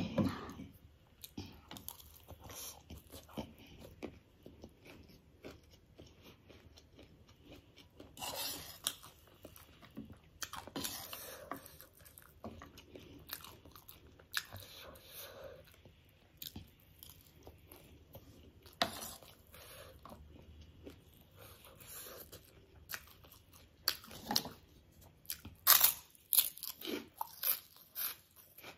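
Close-up crunching and chewing of crunchy snack food, spicy chatpate and dhungri (gol finger), in irregular bites with louder bursts of crunching now and then.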